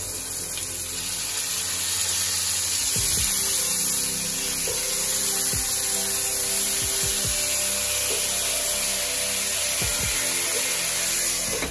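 Raw pork ribs sizzling in hot oil in a frying pan, a steady hiss, with a few soft knocks as more pieces are laid in.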